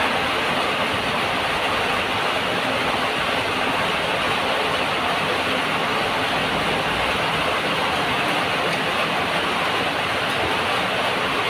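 Heavy rain pouring: a loud, steady rushing hiss with no breaks.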